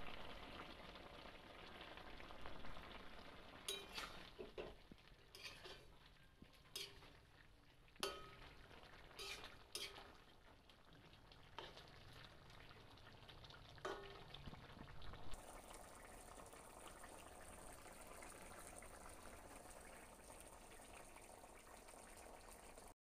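A hilsa and water-lily-stalk curry simmering quietly in a pot, with a faint steady bubbling hiss. Light knocks come now and then during the first half.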